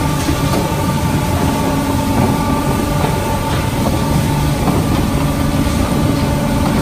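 Chain conveyor for raw sawdust and chips running, its chain and flights rumbling steadily along the trough, over a steady machine hum with a few constant whining tones from the plant's running equipment.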